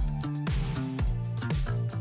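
Background music: a rhythmic track with plucked guitar and a steady beat.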